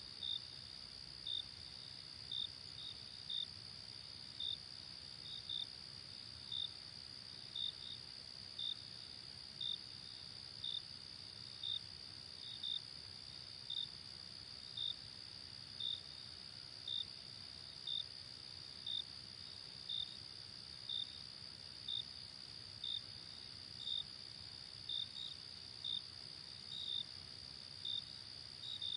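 Insects chirping: a steady high-pitched trill with a sharper chirp about once a second, some of the chirps coming in quick pairs.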